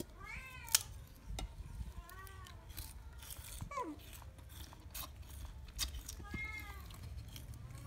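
Baby monkey's short high squealing calls, four of them, each arching up and down in pitch, one gliding down. Sharp clicks and scrapes of a knife peeling sugarcane on a wooden board run underneath, the sharpest click coming under a second in.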